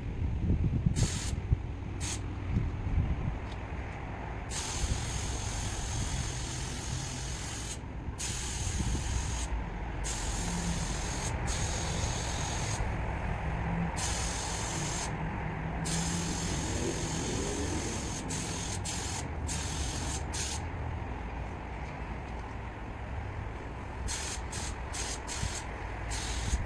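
Aerosol spray can of clear coat hissing in repeated bursts of one to four seconds, with short breaks between passes.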